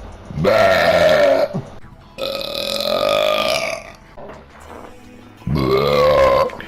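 A man burping loudly three times: two deep, drawn-out burps with a middle one that is longer and held on a steady pitch.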